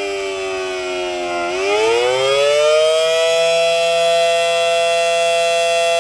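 Federal Signal Model 7AT outdoor warning siren sounding in a test. Its pitch slides down, rises again about a second and a half in, and then holds a steady top tone for about three seconds.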